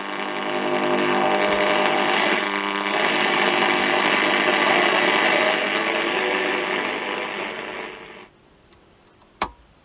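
Regentone DP2 radio's loudspeaker giving out a steady hiss of static with several faint steady tones, with no station tuned on the long wave band. It cuts off suddenly about eight seconds in, and a single sharp click follows a second later.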